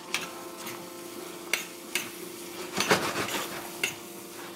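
A metal spoon clinking and scraping against a stainless steel skillet as gnocchi and squash are stirred in a steaming sauce, about six separate clinks, over a steady hum.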